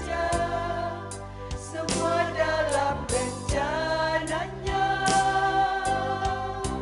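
Church vocal group singing a hymn in harmony over instrumental accompaniment with held low notes and a steady beat.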